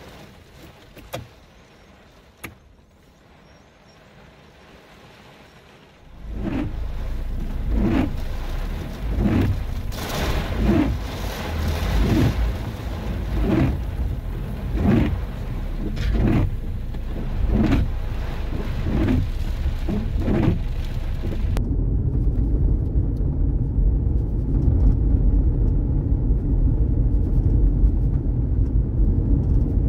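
Car driving, heard from inside, with a steady low road rumble. For about fifteen seconds a regular stroke repeats roughly every one and a half seconds over a hissing haze. Then the hiss cuts off abruptly, leaving a steadier low rumble.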